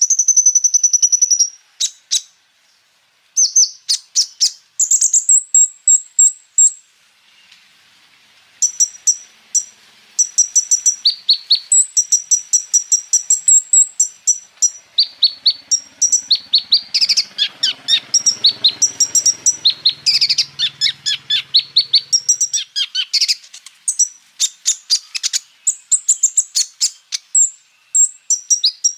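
Kolibri ninja sunbird (konin) singing a fast, high-pitched song of rapid chirps and trilled runs of repeated notes, broken by a few short pauses.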